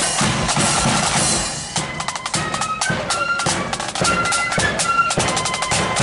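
Marching band snare drums with a bass drum playing a street beat: a dense roll for the first couple of seconds, then sharp separate beats.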